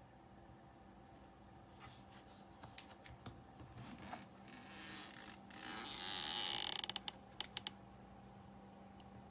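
Handling noise: rustling and scraping, then a quick run of sharp clicks near the end, over a faint steady hum.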